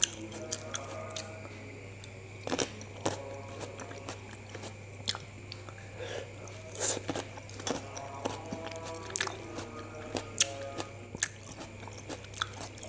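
Close-up mouth sounds of a person biting black grapes off a skewer and chewing them, with many short, sharp wet clicks and pops scattered throughout.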